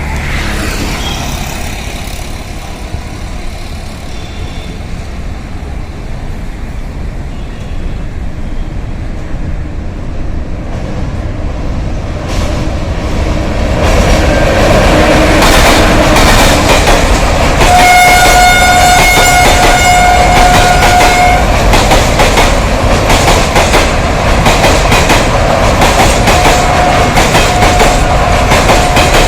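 Train hauled by a WAG-7 electric locomotive approaching and running past, its rumble growing louder over the first half, then a rapid rhythmic clickety-clack of wheels over the rail joints and bridge. The locomotive's horn sounds for several seconds past the middle in a few short breaks, and again more faintly near the end.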